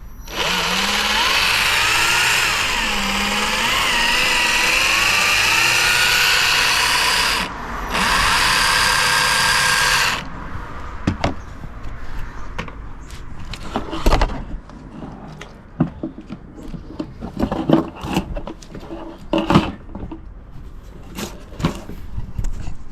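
Electric motor and geared drivetrain of a Traxxas TRX-4 Bronco RC crawler running under throttle, a whine rising and falling in pitch, in two runs with a brief stop between. After about ten seconds it stops and only scattered clicks and knocks follow.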